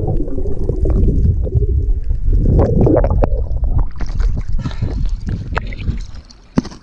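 Water sloshing and gurgling with heavy low rumbling and scattered knocks, fading down near the end.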